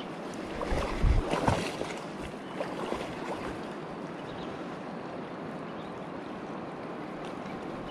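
Shallow river current running steadily over gravel. A few low bumps and rustles about a second in.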